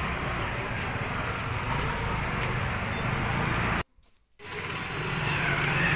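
Steady background noise of a crowded market street, with vehicle sound mixed in; it cuts out completely for about half a second around four seconds in and then returns, growing louder.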